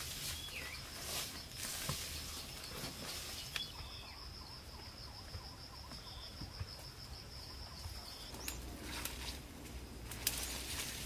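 An insect trilling steadily at a high pitch, stopping about eight and a half seconds in, over outdoor jungle ambience with a few faint bird chirps. Scattered short knocks and scrapes are heard throughout.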